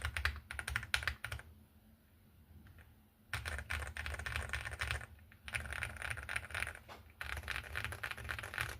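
Fast typing on a mechanical keyboard with Cherry MX Purple switches: quick runs of key clicks and clacks over a low thud of keys bottoming out. The typing pauses for about two seconds early on, then resumes with two short breaks.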